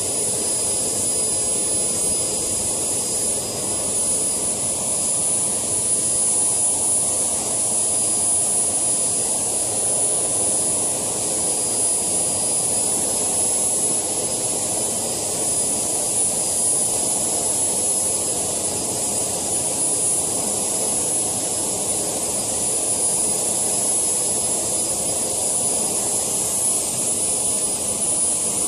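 JetCat PHT2 model-helicopter turboshaft turbine running steadily, a high whine over a rushing exhaust noise. The whine steps up slightly in pitch a few times from about halfway through.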